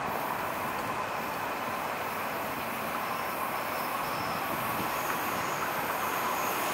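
LA Metro light rail train approaching on curved track, its running noise slowly growing louder, with a faint steady wheel squeal from the curve.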